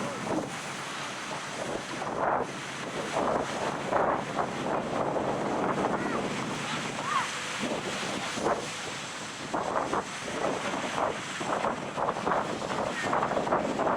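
Ocean surf breaking on a sandy beach, with wind buffeting the microphone.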